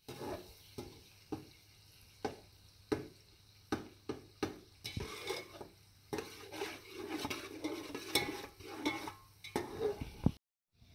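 Sliced onions frying in oil in a steel pot, sizzling, while a utensil stirs them and clinks sharply and irregularly against the pot. The sizzle grows louder in the second half, and the sound stops abruptly near the end.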